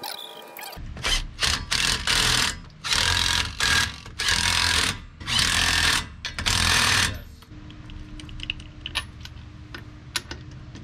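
Cordless impact wrench hammering in about seven short bursts over some six seconds, running lug nuts onto a wheel spacer. It is followed by a scatter of light clicks and taps.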